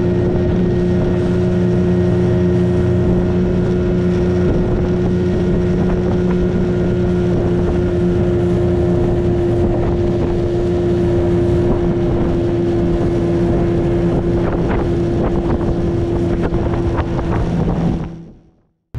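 Outboard motor running steadily at speed, pushing a small aluminum fishing boat across open water, with wind buffeting the microphone. The sound fades out just before the end.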